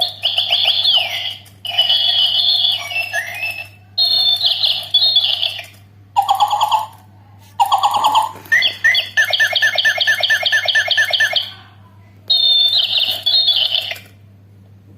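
Electronic sound chip of a battery-operated musical toy playing bursts of bleeping, warbling tones, seven in all with short pauses between them, one a quick run of beeps about six a second; it stops about a second before the end.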